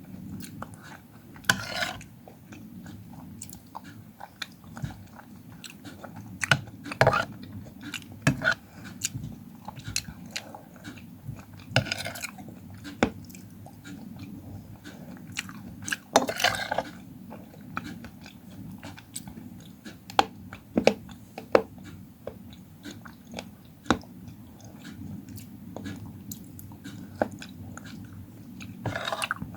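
Close-miked eating of fruit: irregular bites and chewing with crisp crunches, a few louder bites standing out among the smaller mouth clicks.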